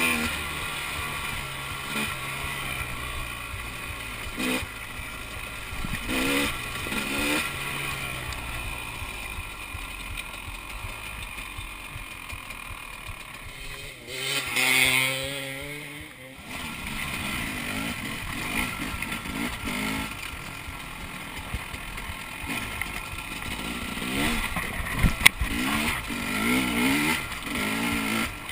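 2011 KTM 300's two-stroke single-cylinder engine revving up and down under throttle on a dirt trail, heard close from the bike-mounted camera. About halfway through the engine note briefly climbs in pitch, and there are a few sharp knocks.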